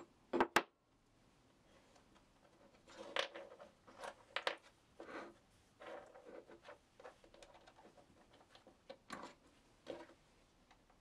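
Steel parts of a home-made engineer's sash clamp being handled: two sharp metal clicks about half a second in, then scattered knocks and scrapes as the clamping jaw on the square steel rail is gripped and adjusted.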